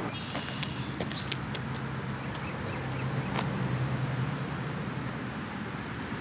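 Outdoor ambience: small birds giving short high chirps in the first second or so, over a steady low hum of distant traffic that swells a little in the middle. A few light clicks are scattered through it.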